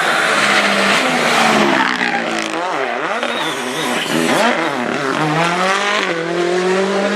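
Rally car engine at full effort on a stage, its pitch dropping and climbing sharply several times through the middle as it shifts gears and brakes, then rising steadily near the end.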